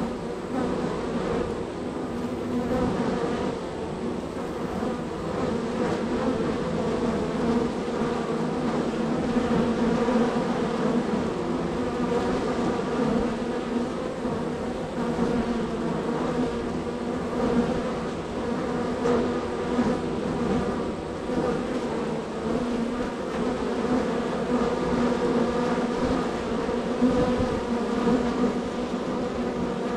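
Honey bee colony buzzing at a very active hive, many bees flying at once in a steady low hum.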